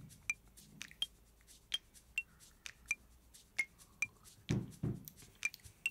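Light background music: a plinking, mallet-like melody of short high notes, about two a second. Two soft low thumps come near the end.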